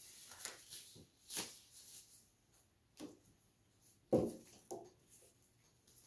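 Disposable gloves being pulled on: a few short rubbery rustles and snaps. A sharp knock about four seconds in is the loudest sound.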